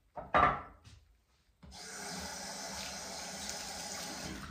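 Bathroom tap running water into a sink in a steady rush, starting about a second and a half in. A brief sharp sound comes just before it, about half a second in.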